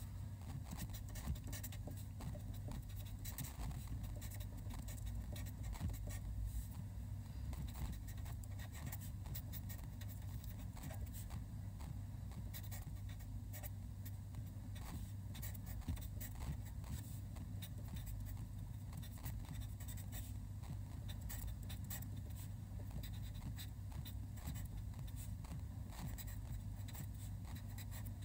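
Fine-tip marker pen writing Chinese characters on paper: many short scratches of the tip, stroke after stroke, over a steady low hum.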